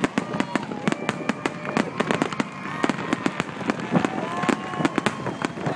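Aerial firework shells bursting in a rapid barrage during a grand finale: sharp bangs and crackles several times a second, without a break.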